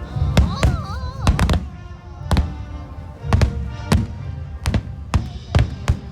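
Fireworks display: about a dozen sharp bangs at irregular intervals, some in quick clusters, over music with sustained tones.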